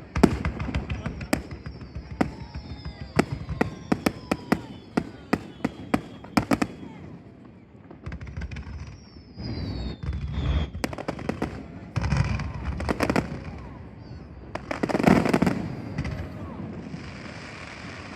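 Fireworks bursting overhead in quick volleys of sharp cracks and bangs, with a few falling whistles. The volleys thin out, one last big burst comes about fifteen seconds in, and then the show falls quiet.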